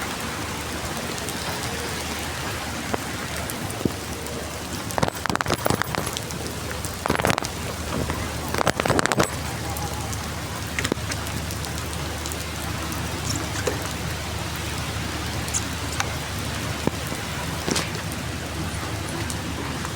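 Heavy rain falling steadily as an even hiss, with a few louder, splashier bursts between about five and nine seconds in and occasional sharp drips later.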